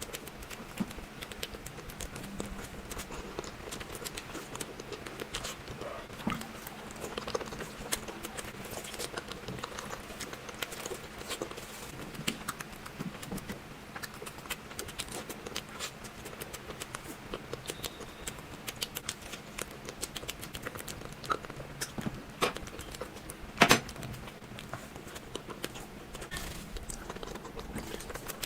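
Close-miked eating sounds of sweets: chewing with a steady scatter of small clicks and crackles, and one sharp, louder click about three-quarters of the way through.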